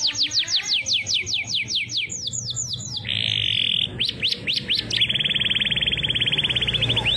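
Domestic canary singing a fast, varied song. A rapid run of downward-sweeping whistled notes leads into a short buzzy trill about three seconds in, then a few more sweeps, then a long fast trill from about five seconds in.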